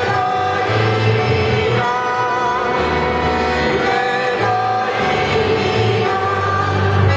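Polish highlander folk band playing a Christmas carol on violin, accordion and double bass, with singing over the instruments and a steady low bass line moving note to note.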